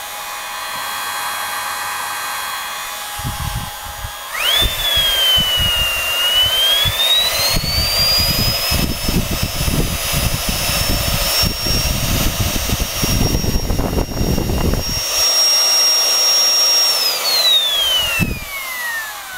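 Vacuum cleaner's small brushed motor and fan run on a variac with a high whine. It is steady at first; about four seconds in the voltage is turned up and the whine jumps, wavers, then climbs to a high, steady pitch over rushing air. Near the end it falls away as the motor winds down. It is noisy, but the bearings sound alright, with no crunching.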